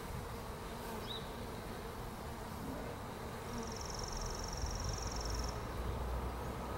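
Honey bees buzzing steadily around an open hive, a freshly installed package colony stirred up by the frames being worked. A short chirp about a second in and a high, fast trill lasting about two seconds from the middle sound over the hum.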